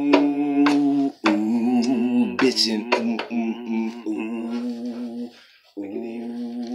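A man's voice singing a wordless melody in long held, bending notes, with a short break about five seconds in. A few sharp clicks sound near the start.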